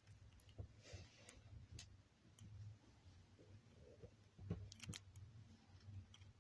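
Near silence with faint, scattered clicks of plastic fidget spinners being handled, over a low steady hum.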